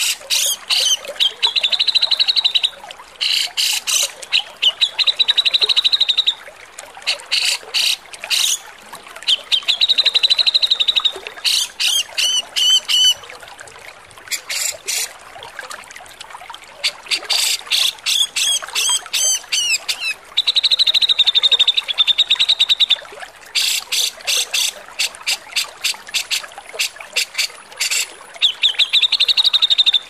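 Grey-cheeked bulbul (cucak jenggot) giving harsh, rasping calls in short bursts, running into rapid chattering trills. Clear falling notes come in twice, about 12 seconds in and again around 18 seconds.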